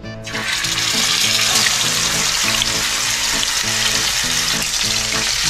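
Tautog fillet in hot oil in a frying pan, sizzling as it starts to fry. The sizzle starts suddenly just after the fillet goes into the oil and then keeps on steadily.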